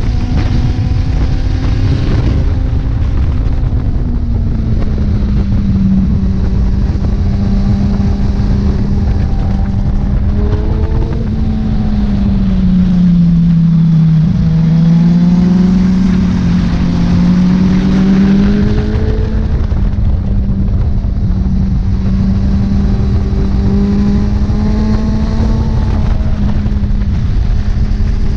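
Kawasaki Z1000's inline-four engine running at steady high revs under way, with heavy wind rush across the helmet. About halfway through, the revs dip and then climb back up.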